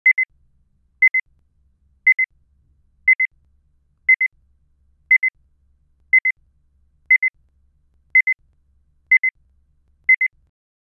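Electronic timer beeping: a quick double beep at one steady high pitch, repeated once a second, eleven times. It counts off the time allowed to answer a question.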